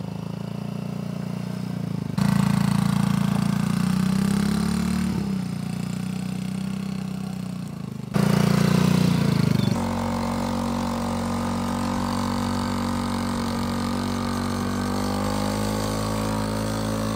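Children's quad bike motor running as it is ridden. Its note jumps to a new steady pitch a few times and rises slowly near the end as it speeds up.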